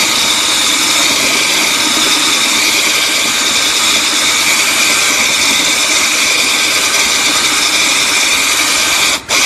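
Handheld power drill running steadily, its bit grinding into thick bottle glass under water held in a putty dam that keeps the glass from shattering. The drill cuts out for a split second about nine seconds in.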